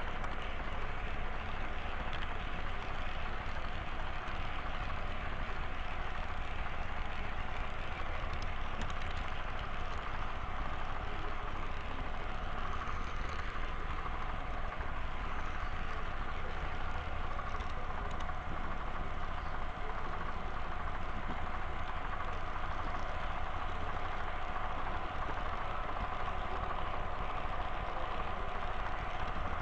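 Model train running along the layout track: a steady whine with a low hum and the rolling noise of its wheels on the rails, picked up close by the camera riding on the train.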